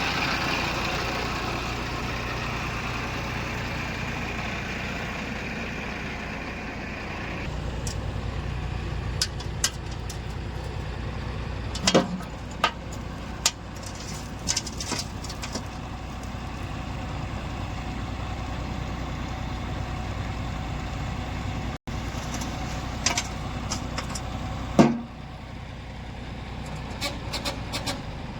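Heavy diesel machinery engine running steadily, with several sharp knocks around the middle and the loudest one near the end.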